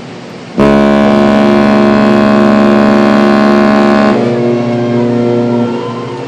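Ship's horn of the Queen Mary 2 sounding one long, steady blast, starting suddenly about half a second in and lasting about three and a half seconds, then carrying on more quietly for another second and a half.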